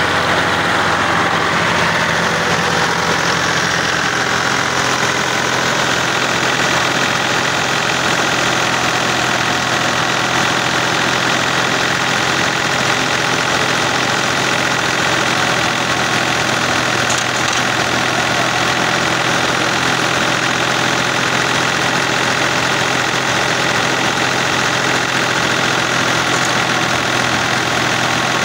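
Tractor-driven wheat thresher running steadily, tractor engine and threshing machinery together making a continuous unbroken drone while wheat is fed in.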